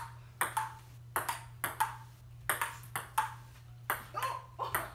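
Table tennis ball clicking off the table and paddles in a continuous rally, a quick run of sharp clicks, about three or four a second, often in close pairs.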